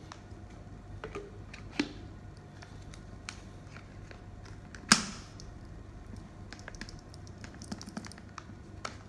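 Black plastic butt stock being slid onto the mounting bar on a paintball air tank and handled: scattered light clicks and taps of plastic on plastic and metal, with one sharp knock about five seconds in.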